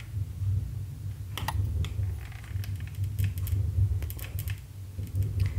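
Scattered small clicks and taps from handling a hot glue gun and a plastic cover disc, irregular and a few per second at most, over a steady low hum.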